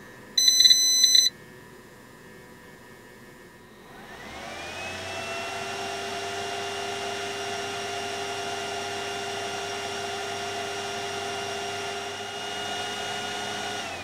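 A short, loud electronic beep about half a second in. About four seconds in, the cooling fan of a 2000-watt power inverter kicks on, rising in pitch as it spins up to a steady whirring whine, and begins to wind down at the very end.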